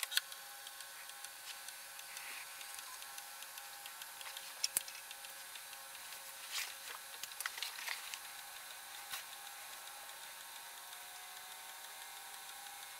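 Commodore 1541-II floppy drive running an alignment check in fast-forward, its read/write head stepping track by track: faint scattered clicks over a steady whine and hiss, with a few louder clicks in the middle.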